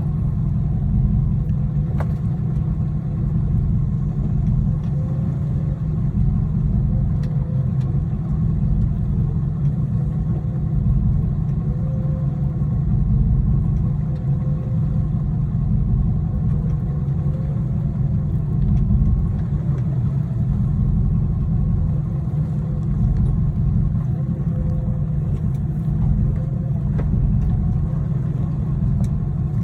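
An engine running steadily, a continuous low rumble with a faint wavering tone recurring about every two seconds.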